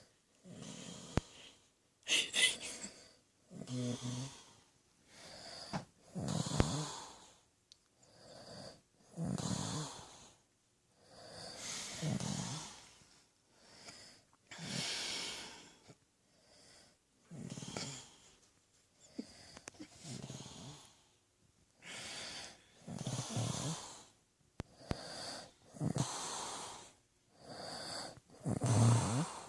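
A man snoring in his sleep: rattling, low-pitched snores alternating with airy, wheezy breaths, about one every one and a half seconds.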